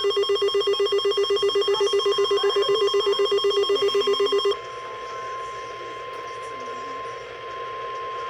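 Weather alert tones. A rapidly pulsing electronic alarm, about eight pulses a second, sounds over a steady 1050 Hz NOAA Weather Radio warning alarm tone. The pulsing alarm cuts off about four and a half seconds in, leaving the steady tone, which signals that a warning broadcast is about to follow.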